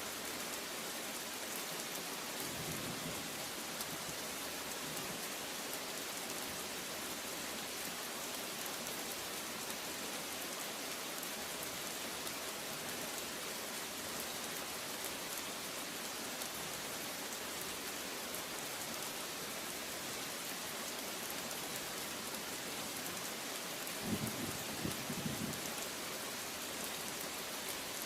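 Steady rain falling and pattering on surfaces, with a brief low rumble of thunder about four seconds before the end.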